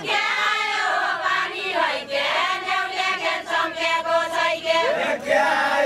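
A group of women singing a Deuda folk song together, with long held notes.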